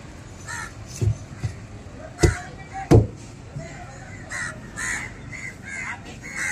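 Crows cawing repeatedly, with a few sharp strikes of a large knife chopping through a stingray on a tabletop; the two loudest strikes come about two and three seconds in.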